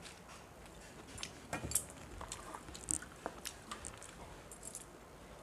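Eating sounds at a steel plate: a steel spoon clinking against the plate as fish curry is poured over rice, then fingers mixing the rice, with some chewing. Scattered small clicks and taps, the loudest a little under two seconds in and about three seconds in.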